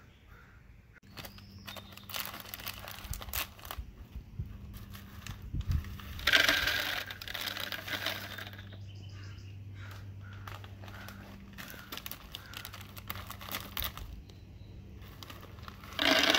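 Plastic snack bag crinkling as snacks are poured and fall into a wooden dispenser's hopper, in bursts of rustling and small clicks, the loudest about six seconds in and another short loud one near the end. A steady low hum underneath from about a second in.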